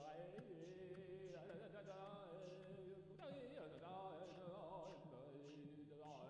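Faint background music: a chant-like sung melody over a sustained drone, with light ticks keeping a regular beat.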